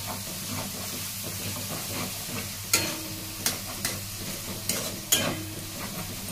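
Onions and ginger–green-chilli paste sizzling in ghee in a stainless-steel kadhai while a spatula stirs and scrapes them. Several sharp knocks of the spatula against the pan come in the second half.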